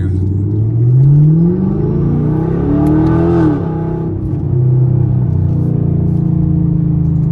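Straight-piped Camaro SS 6.2 L V8 accelerating hard, heard from inside the cabin: the engine note climbs for about three and a half seconds, drops at an upshift of the 8-speed automatic, then holds a steady lower drone.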